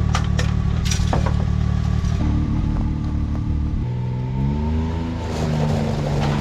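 Can-Am Maverick X3 side-by-side engine running, with a few sharp clicks in the first second, then revving with the pitch rising about four seconds in before settling.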